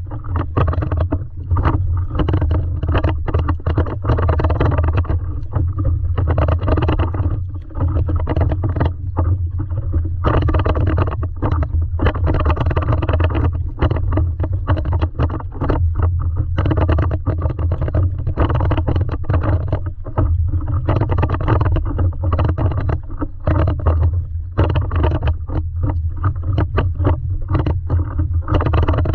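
Water splashing and slapping against a stand-up paddleboard as it is paddled across choppy water, in irregular bursts over a steady low rumble.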